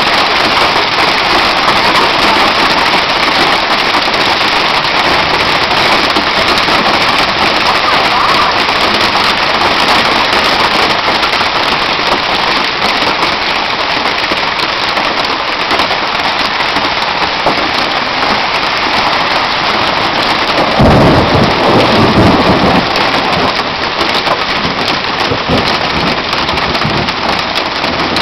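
Heavy hail pelting down in a dense, steady clatter. Thunder rumbles loudly about 21 seconds in.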